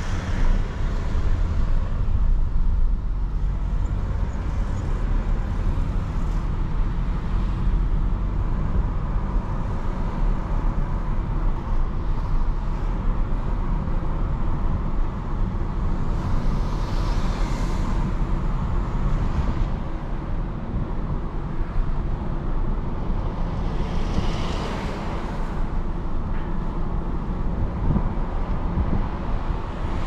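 Audi A3 30 TFSI driving, heard from inside the cabin: a steady low rumble of engine and tyre noise. Brief swells of hiss come through twice in the second half.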